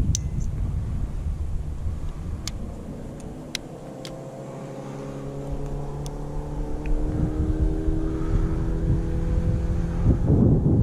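A motor engine's steady hum that rises in level over the second half, heard over wind on the microphone. A few sharp clicks come in the first few seconds.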